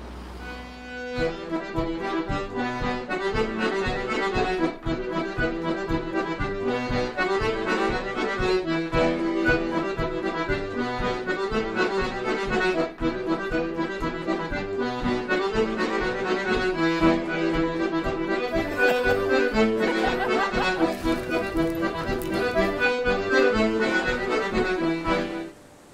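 Instrumental music in a traditional folk style with a steady rhythmic beat. It swells in about a second in and stops abruptly near the end.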